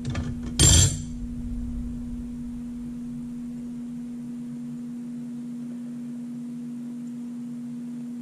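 Dual-clutch transmission clutch plates clattering as they are lifted off the clutch pack, a short metallic clatter about half a second in. A steady low hum sits underneath.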